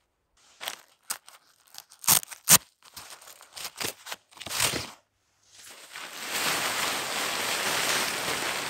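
Hot tent fabric being handled on snow: a run of sharp rustles and crinkles as the packed tent is opened. From about six seconds in, a steady loud rushing noise takes over.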